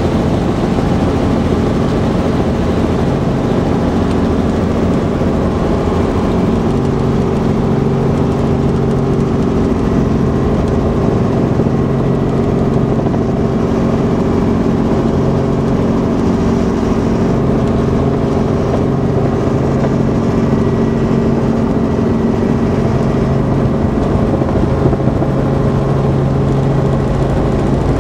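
Helicopter engine and rotor noise inside the cabin: a loud, steady drone with a few held tones, as the helicopter comes in to land.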